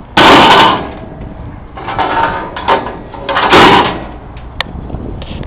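A heavy sheet-metal stove being shifted, giving three loud scraping, sliding noises about a second apart, then a single sharp knock.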